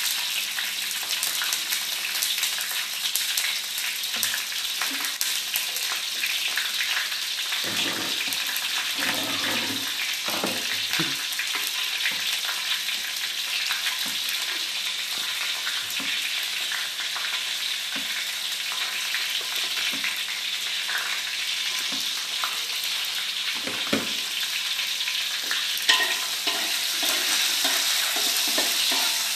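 Oil sizzling steadily in a wok as chopped tomatoes, shallots and chillies fry. A spatula scrapes and knocks against the pan now and then, in a cluster about a third of the way in, with one sharper knock near the end.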